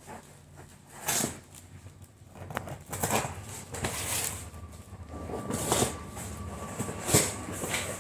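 Cardboard shipping box being handled and pulled open by hand: a series of brief rustles and scrapes of cardboard about a second apart.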